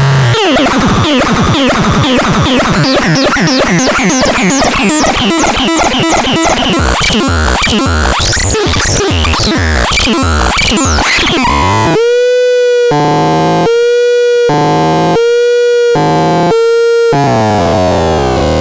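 Electronic synthesizer playing a busy, noisy run of rapidly stepping and sweeping tones. About twelve seconds in it changes to four evenly spaced held tones, each about a second long, with gliding tones sounding in the gaps between them.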